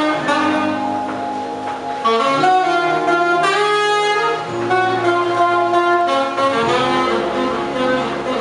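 Alto saxophone playing a jazzy melody of held and moving notes over a backing track that carries sustained low notes beneath it.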